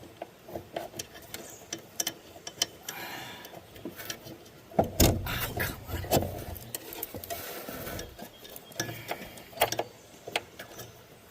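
Scattered light metallic clicks and taps as a mower deck cable end and its fittings are worked by hand into their mounting hole under a Cub Cadet LT1050 riding mower, with a stretch of rustling handling noise in the middle.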